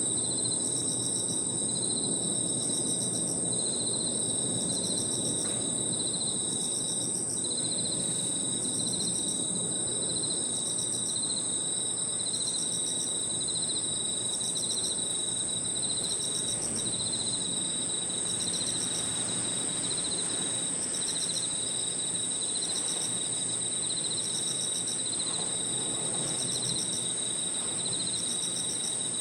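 Crickets and other insects calling together: one high, unbroken trill alongside a lower chirping that comes in repeated pulsed phrases, over a low, steady background hum.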